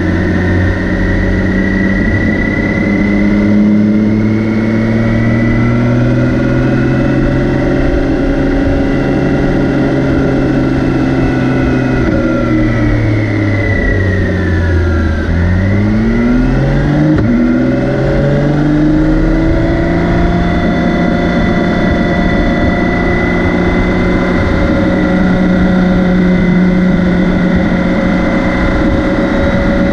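BMW K 1600 B's 1,649 cc inline-six engine running under way. Its note holds steady, then slowly falls to a low point about halfway through. It climbs again in a few quick, short rises and settles into a steady cruising note.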